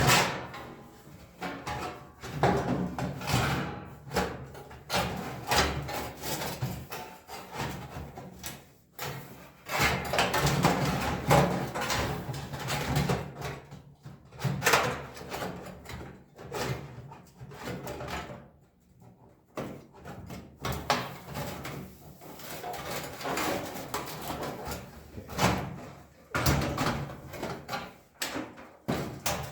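Irregular knocks, clanks and rattles of a toaster oven's sheet-metal cover being handled and fitted back onto the oven.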